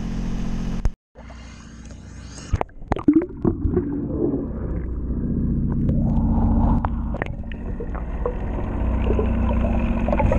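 Underwater sound from a camera beneath a boat's hull: a muffled, steady low rumble of water with faint gurgling, and a cluster of sharp clicks and knocks about three seconds in. A steady hum is heard in the first second, before the cut.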